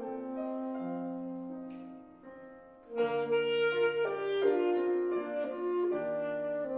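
Alto saxophone playing slow sustained melody notes with piano accompaniment in a classical recital piece. The notes fade down about two seconds in, then the saxophone comes back louder about three seconds in with new held notes over the piano.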